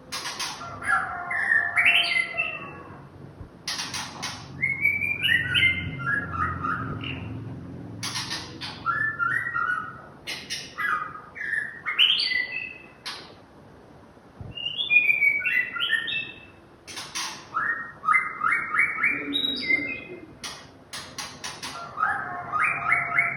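White-rumped shama singing through its repertoire of learned phrases: varied whistled notes broken by sharp, clicking chatter, in bursts of a second or two with short pauses between.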